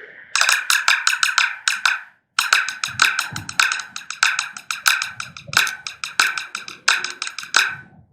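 Vic Firth drumsticks striking a drum in groups of quick strokes with a bright ring, separated by short pauses, with a brief full stop about two seconds in.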